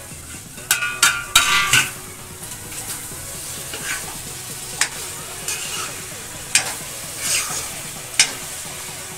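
Steel ladle stirring and scraping potato and carrot sabzi in a steel kadhai, over a steady sizzle. About a second in, a few ringing metal clanks as the steel lid comes off the pan.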